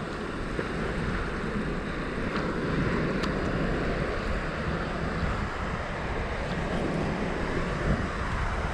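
Steady wash of shallow surf over a sandy beach, mixed with wind buffeting the microphone.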